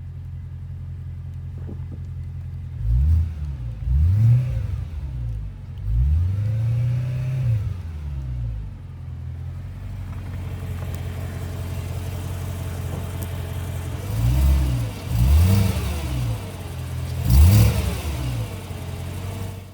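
BMW E92 M3's S65 V8 idling, blipped several times, with one longer rev held for about a second and a half. The owner attributes the engine's knock-like noise to an exhaust manifold leak rather than worn connecting-rod bearings.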